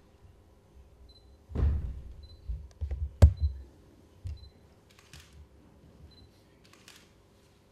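A few dull low thumps, about a second and a half in and again around three seconds, with one sharp click among them that is the loudest sound. Faint, short high beeps come now and then.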